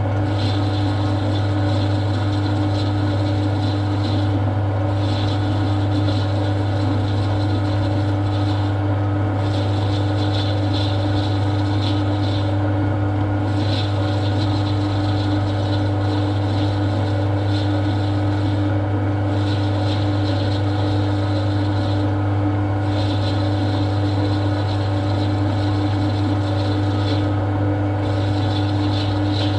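Metal lathe running steadily with a low motor hum while a parting tool cuts off the part; a higher cutting hiss drops away briefly every four to five seconds.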